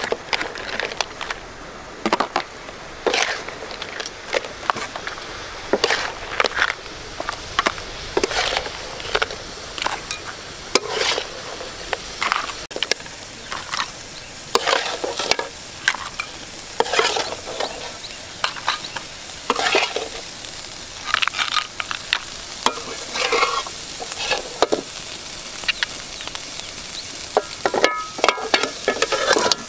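Metal spatula stirring and scraping blue crabs in curry sauce around a steel wok, irregular scrapes and clanks roughly once or twice a second over a steady sizzle of frying.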